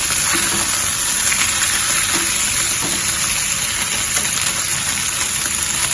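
Marinated pork chops pan-frying in hot oil over medium heat: a steady, dense sizzle.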